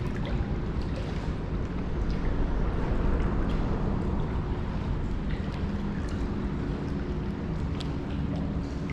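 Wind buffeting the microphone, a steady low rumble, with a few faint ticks scattered through it.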